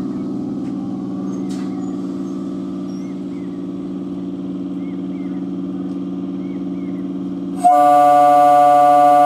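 An old-model conventional EMU local train stands at the platform with a steady electrical hum. Near the end its horn starts, a loud, steady single-pitched blast, sounded ahead of departure.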